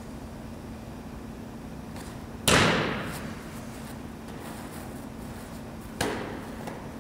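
A football from a long snap smacking into the catcher's hands, a sharp slap that echoes in a large indoor room, followed by a second, quieter slap near the end.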